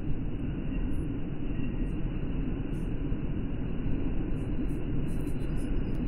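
Old electric table fan running with a steady whir of motor and blades and a rush of air. It is running slowly, a sign of its failed starting capacitor.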